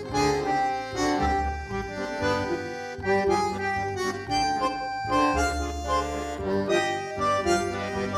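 Instrumental background music, an accordion playing a melody over a steady bass line.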